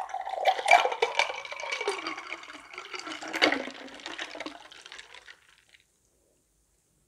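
Cola with ice poured from a paper cup into a glass, splashing and fizzing as the glass fills; the pour stops a little over five seconds in.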